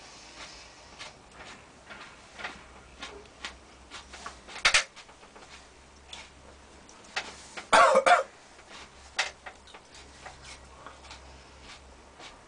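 A person chewing a hot chilli pepper: scattered small wet mouth clicks and smacks, a sharper click about four and a half seconds in, and a short harsh cough about eight seconds in.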